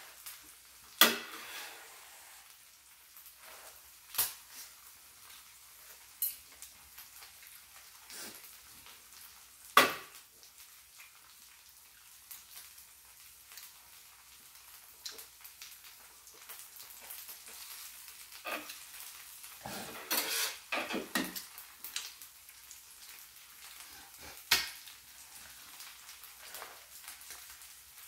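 Pajeon sizzling faintly on a tabletop electric griddle, with sharp clicks and knocks of chopsticks and tableware on top: a few single loud clicks about a second in, near ten seconds and near twenty-five seconds, and a quick run of knocks around twenty seconds in.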